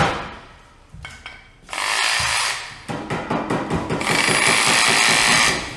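A sharp knock, then a mechanical rattling and, from about four seconds in, a steady loud whir like a power tool running.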